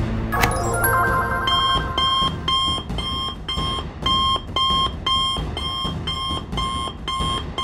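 Cartoon call alert from a smartwatch communicator: an electronic beeping that repeats evenly at about two beeps a second. A short sound effect plays as the watch opens near the start.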